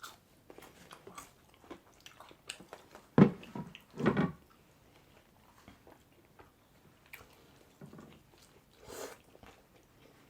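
Close-miked chewing and biting of pulled pork sandwiches and fries, with small wet mouth clicks throughout and two louder sounds about three and four seconds in.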